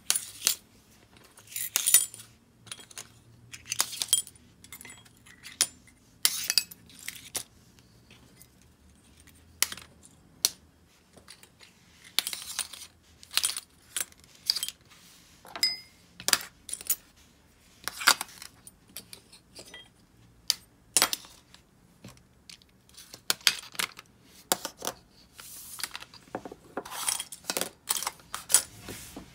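Small metal parts of a disassembled Abu Garcia Ambassadeur 5500 DA baitcasting reel clinking and clattering as they are handled during cleaning. The clinks come in irregular clusters, a few ringing briefly.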